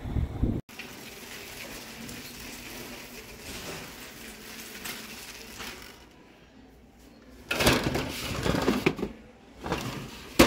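Wind on the microphone for a moment, then the steady hiss of a quiet shop interior. About halfway through, and again near the end, comes loud rustling handling noise as a battery chainsaw is taken hold of on a metal store shelf.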